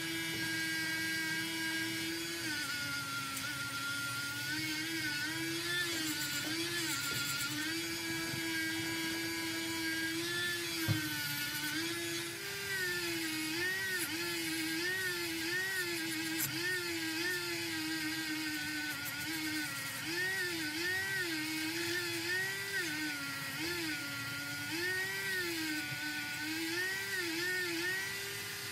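Handheld rotary tool running at high speed with wire brush and abrasive wheels, scrubbing the last paint off a die-cast metal toy car body. Its whine dips in pitch over and over as it is pressed onto the metal, then recovers. There is a single sharp click just before the middle.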